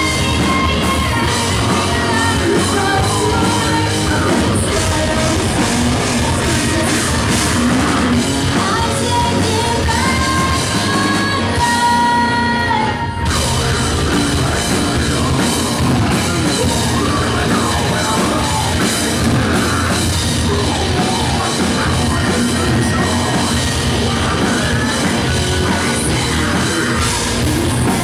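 Five-piece melodic post-hardcore band playing live: bass, guitars and drums under screamed and sung vocals. There is a brief break about halfway through before the band comes back in.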